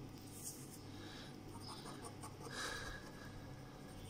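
Ballpoint pen scratching faintly across paper in short separate strokes, the longest about two and a half seconds in.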